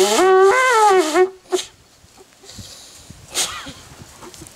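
A blowing horn made from an animal horn sounds one loud blast with a wavering pitch. The blast cuts off about a second in and is followed by a short toot, then a brief breathy sputter about three seconds in.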